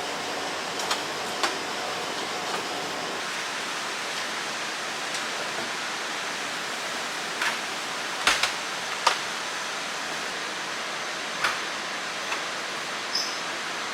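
Steady hissing room noise with scattered light clicks and knocks, a few close together about eight seconds in, and a brief high beep near the end.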